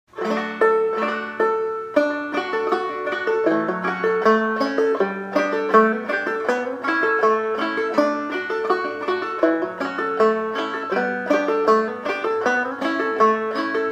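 Gold Tone CC-Carlin-12 open-back five-string banjo played clawhammer style: a steady, rhythmic run of plucked notes and brushed strums, an instrumental intro to an old-time tune. It starts about a quarter second in.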